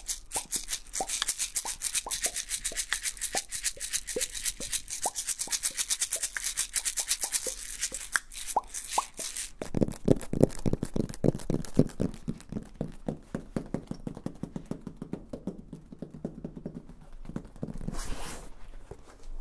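Fast, crisp fingernail tapping on a small metal tin held close to the microphone, with a few short pops among the taps. About ten seconds in it changes to quick, duller tapping and scratching of fingertips on a grey molded-foam packaging shell, ending with a brief swish.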